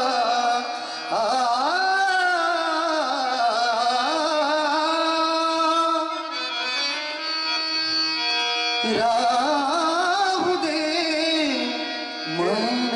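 Marathi devotional bhajan: male voices singing long, held notes that slide and waver in pitch, accompanied by harmonium and tabla.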